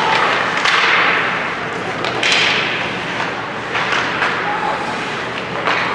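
Ice hockey play in a rink: a few sharp knocks of sticks and puck, two hissing scrapes in the first half, and voices of crowd and players.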